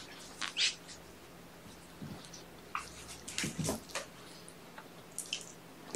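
Soft rustling and light scuffing from a kitten being held and handled, in short clusters: about half a second in, a busier stretch around three to four seconds in, and a brief one near the end.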